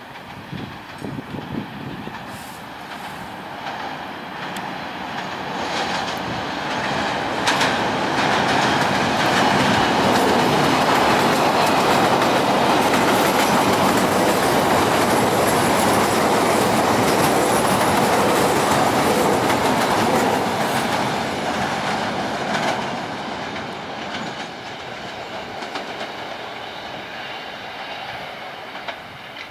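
A CTA 5000-series rapid-transit train running along elevated steel tracks and passing close by. The noise of wheels on rail grows louder over the first several seconds, holds loud and steady for about twelve seconds as the cars go by, then fades away. A few sharp clicks of wheels crossing rail joints stand out.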